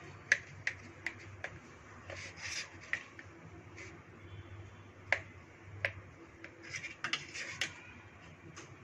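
Knife cutting a baked sponge cake on a plate: short patches of soft rasping as the blade saws through the crust, and about a dozen sharp clicks as the knife taps and scrapes against the plate.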